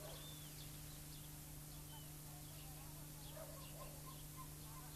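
Faint, scattered bird chirps over a steady low hum and hiss, with a few faint lower calls or distant voices about three and a half seconds in.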